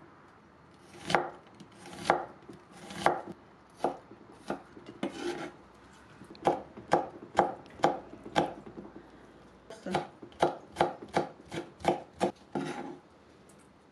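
Kitchen knife chopping onion and green chili on a wooden cutting board: a few slow, single strokes about a second apart, then quicker runs of about two to three cuts a second.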